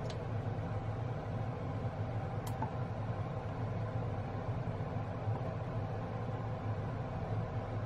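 Steady low mechanical hum in a kitchen, even throughout, with one faint short click about two and a half seconds in.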